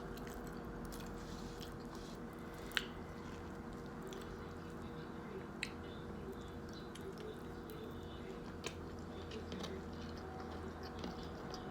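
A person quietly chewing a mouthful of sandwich, with a few soft sharp mouth clicks, over a faint steady background hum.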